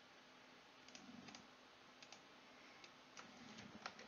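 Near silence broken by a few faint clicks from a computer mouse, in small groups about a second in, around two seconds in and more often near the end.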